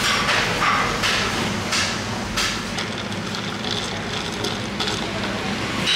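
Ice knocking and clinking in a tall glass as it is stirred with a straw, a series of short irregular knocks over a steady low hum.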